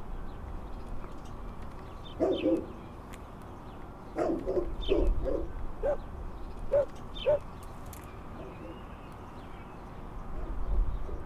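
A dog barking in short clusters: two barks about two seconds in, a quick run of four in the middle, then three single barks, over a steady low outdoor hum.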